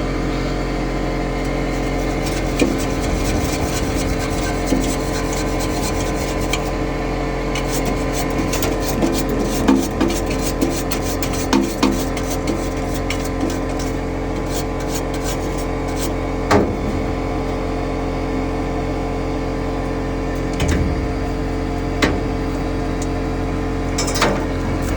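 Scattered knocks, scrapes and taps of hand tools working on a gas furnace's blower assembly, busiest around a third of the way in, over a steady machine hum.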